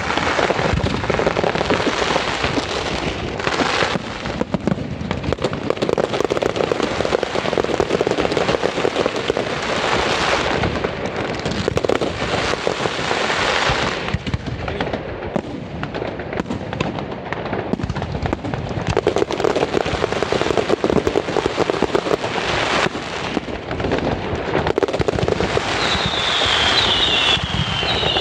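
Fireworks display: a dense, continuous barrage of bangs and crackling, with several high whistles falling in pitch near the end.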